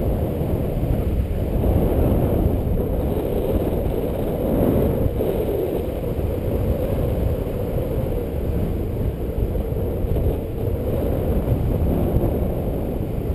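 Wind rushing over a camera microphone during paraglider flight: a steady, low rushing rumble that swells and dips slightly.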